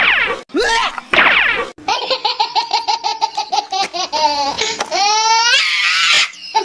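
High-pitched laughter, a fast run of short 'ha-ha' pulses, starting about two seconds in. It follows a few falling, pitched whooping sounds.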